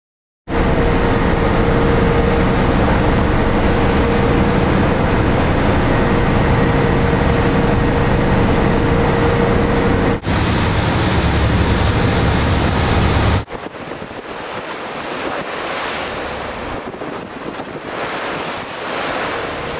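Dive boat under way at sea: a loud, steady engine drone with a held hum over the rush of the wake. A few seconds after the midpoint it gives way to quieter gusting wind on the microphone with sea noise.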